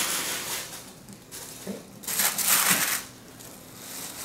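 Tissue paper rustling and crinkling as it is pulled out of a gift box and the cloth dust bag underneath is handled. It comes in two spells, the louder one about two seconds in.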